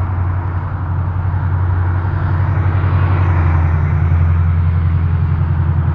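Strong wind buffeting the microphone: a steady low rumble with hiss above it, getting a little louder around the middle.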